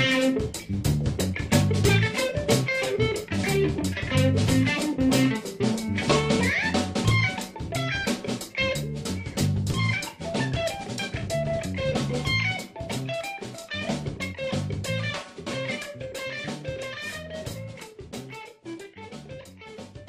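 Band music with electric guitar, bass and a drum kit keeping a steady beat, slowly fading out over the second half.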